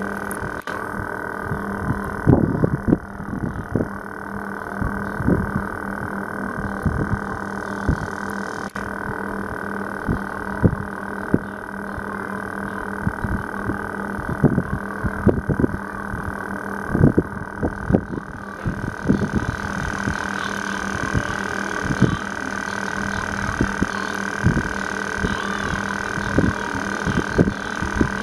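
Irregular low thumps and rumble on a compact camera's built-in microphone, over a steady low hum and a steady higher whine.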